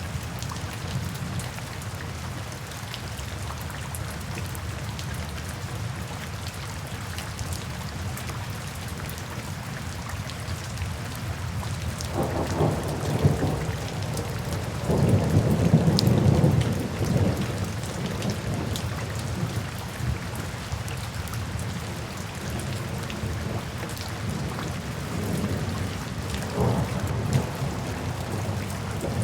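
Steady rain falling, with rolls of thunder: a low rumble a little before halfway, a louder, longer one just after it, and a fainter one near the end.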